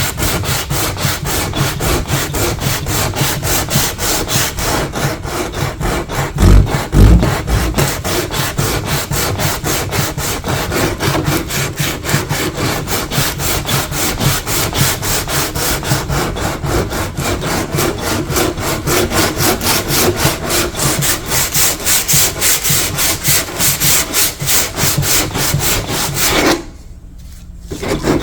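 Hand-stripping old paint and finish from wood: quick, even back-and-forth abrasive strokes across the surface. There is one loud low bump about seven seconds in, and the strokes stop briefly near the end.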